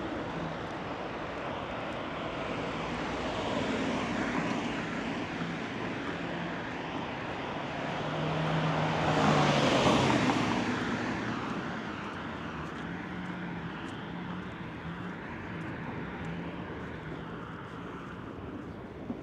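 Street traffic noise, with a vehicle passing close by: its sound swells to the loudest point about halfway through, then fades away.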